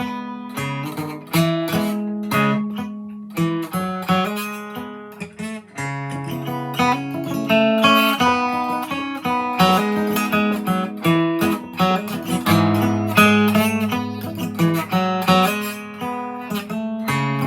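2002 Gibson J-45 round-shouldered acoustic guitar with coated steel strings, capoed at the fourth fret, played with a continuous run of notes and strummed chords.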